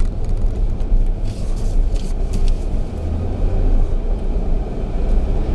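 Jeep Grand Cherokee Overland driving slowly over a dirt off-road trail, heard inside the cabin: a steady low rumble from the drivetrain and tyres, with a few light clicks and knocks a second or two in.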